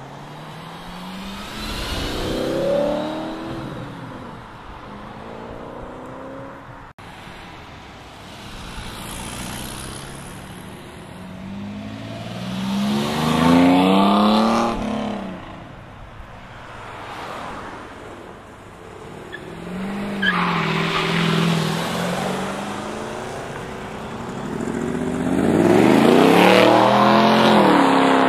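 Sports car engines accelerating hard past, one after another, with the engine note climbing in pitch each time. The loudest pass comes near the end.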